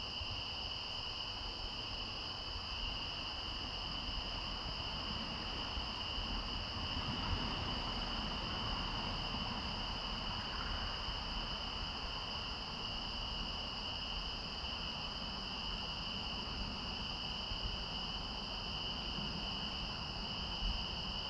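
Crickets chirping in a steady chorus, a continuous high-pitched trill with no breaks, over a low background rumble.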